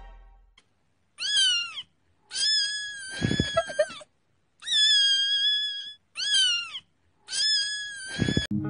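A cat meowing five times in a row. Three of the meows are long and drawn out; the first and fourth are short and fall in pitch at the end. Before the first meow, the tail of a ringing sound effect fades out.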